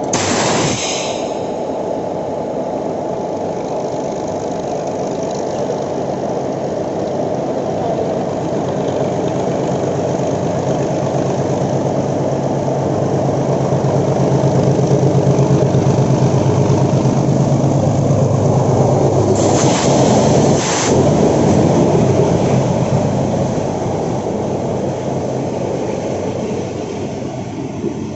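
WDS6 diesel-electric shunting locomotive's ALCO engine running with a steady drone that grows louder over the first half and then slowly fades. A brief burst of noise comes about two-thirds of the way through.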